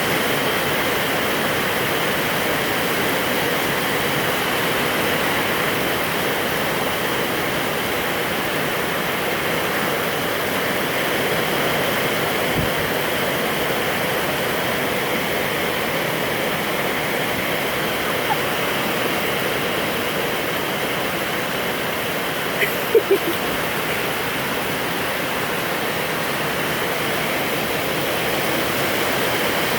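Heavy rain falling steadily, an even hiss of downpour. A few brief sharp sounds cut through it about two-thirds of the way in.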